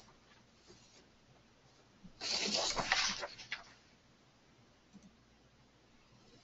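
A brief rustling noise lasting about a second and a half, a couple of seconds in, with a few faint clicks before and after it.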